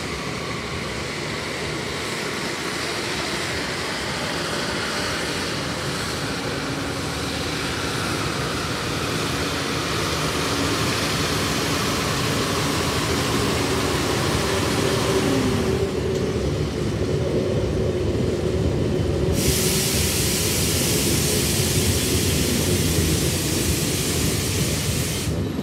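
Freight cars shoved by a hi-rail truck rolling slowly past on the track: a steady rumble of steel wheels on rail with faint ringing tones, growing gradually louder. A high hiss joins about three-quarters of the way through and stops just before the end.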